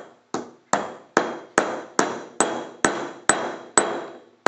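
Hammer striking a lump of marble on a small stone block to crush it into small pieces: about nine sharp blows at roughly two a second, each with a brief ring.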